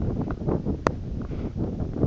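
Wind buffeting the phone's microphone in uneven gusts, with one short sharp click a little under a second in.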